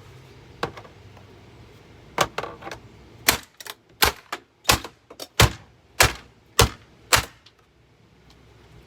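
Hammer blows on a Hoover vacuum cleaner being smashed apart. One hit comes first, then a quick run of lighter taps, then about seven hard, sharp strikes in a steady rhythm, a little over one a second.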